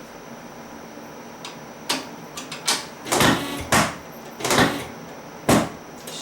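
A chiropractic Thompson drop table's sections giving a run of about six sharp clunks over four seconds, starting about two seconds in.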